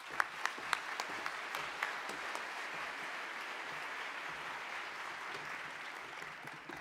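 Audience applauding, starting with a few separate claps, then a steady round of applause that dies away near the end.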